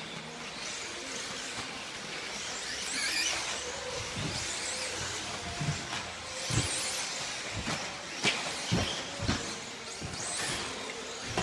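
1/10-scale electric off-road RC buggies running on a carpet track, their electric motors whining up and down in pitch as they speed up and slow down. In the second half come several sharp knocks.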